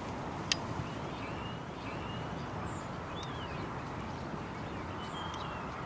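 Steady outdoor field ambience with a constant haze of wind-like noise, a few short high bird chirps scattered through it, and one faint sharp click about half a second in.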